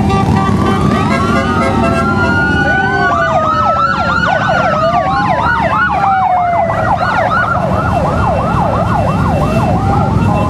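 Several emergency-vehicle sirens sounding at once: a slow rising and falling wail, joined a few seconds in by a fast yelp of about three to four sweeps a second. Under them runs the steady rumble of a procession of motorcycles riding past.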